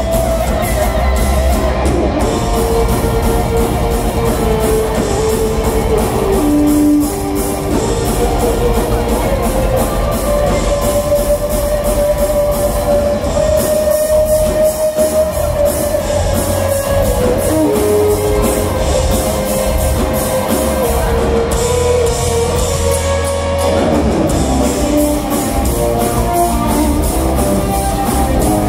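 Live rock band: an electric lead guitar plays a melody of long held, sustained notes over drums and bass, heard loud from within the crowd.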